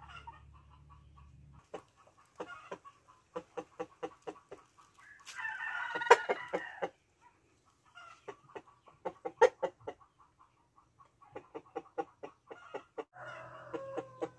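Chickens clucking in quick runs of short clucks, about three or four a second, broken by a longer, harsher call about five seconds in and another near the end.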